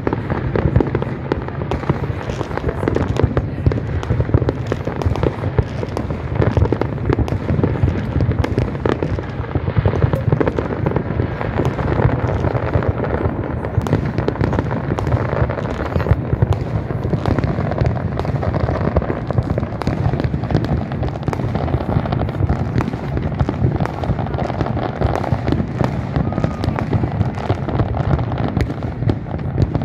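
Big fireworks display: continuous rapid bangs, booms and crackling from many shells bursting at once, without a break.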